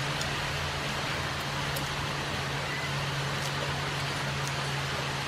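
Steady background hiss with a low, even hum and no speech.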